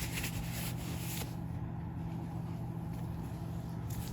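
A steady low mechanical hum holding one constant pitch, with a brighter hiss over it for about the first second.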